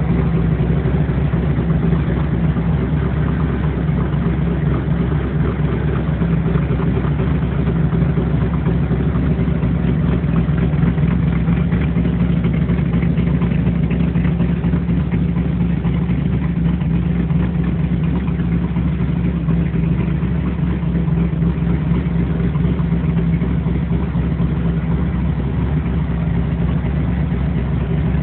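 Ford 428 Cobra Jet V8 with twin four-barrel carburettors idling steadily, loud and even with no revving.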